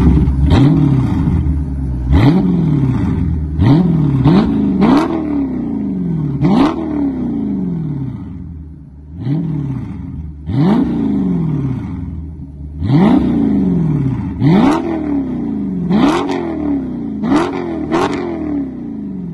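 Dodge Charger Scat Pack's 6.4-litre 392 HEMI V8, breathing through Dynomax Race Bullet mufflers, being revved while parked. It gives about a dozen quick throttle blips, each one climbing sharply in pitch and dropping back to idle, in clusters with short pauses between them.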